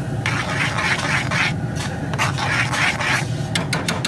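Spoon scraping around a cast iron pan as thick queso dip is stirred, in about five strokes, then a few sharp clicks near the end.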